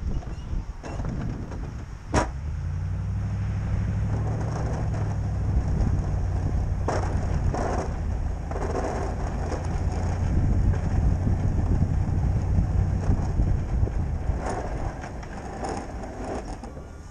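Ford F-250 pickup's engine running steadily under load while it pushes snow with a V-plow. There is a sharp click about two seconds in, and short scraping bursts come and go as the blade works the snow.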